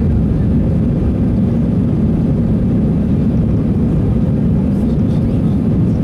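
Steady, deep cabin noise of an Airbus airliner climbing after takeoff: jet engines and rushing air, heard from a window seat over the wing.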